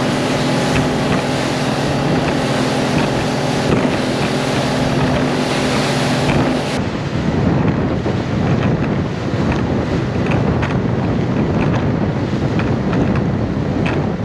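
Motorboat running at speed: a steady engine drone over the rush of hull and wake, with wind buffeting the microphone. About seven seconds in the engine note drops away, leaving mostly wind and water rushing.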